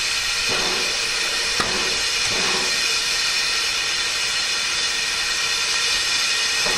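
Steam hissing loudly and steadily from a standing Ivatt Class 2MT 2-6-2T steam tank locomotive.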